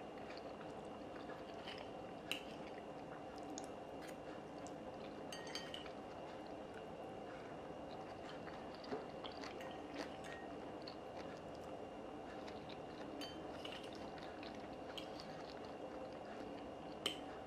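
A person quietly eating: faint chewing with a few light clicks, like a utensil against a dish, over a steady low room hum.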